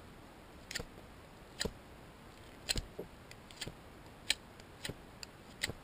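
Box cutter blade shaving the bark off a speckled alder stick: about seven short, sharp scrapes, roughly one a second.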